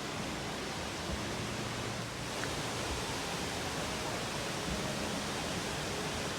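Waterfall rushing steadily, a constant full-range hiss of falling water.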